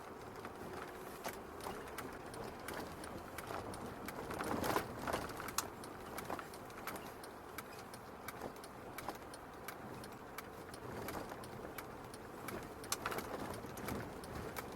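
A car driving over a snow- and ice-covered street: a steady road noise with irregular crunching clicks and ticks from the tyres on packed snow and ice, a little busier about four seconds in and again near the end.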